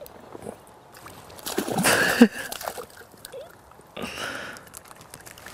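A small hooked pike splashing and thrashing at the surface as it is played in close to the bank. There are two bursts, the louder about two seconds in and a shorter one about four seconds in.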